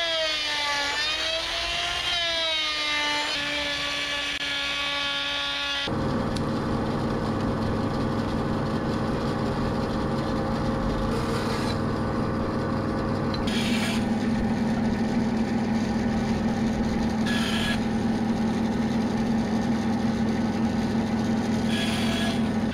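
Electric wood router running as it cuts along a plank, its motor whine dipping and rising in pitch under the load. About six seconds in this switches abruptly to a bandsaw running steadily as it rips thin strips of wood, with a few short louder bursts of cutting noise.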